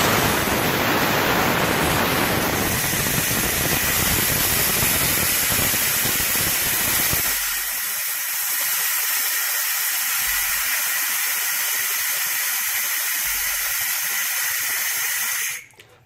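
R134a refrigerant gas hissing out of a refrigerator's sealed system as it is vented, carrying the air inside out with it: a crude purge in place of vacuum pumping. The steady hiss thins out about halfway through and cuts off abruptly near the end as the valve is closed.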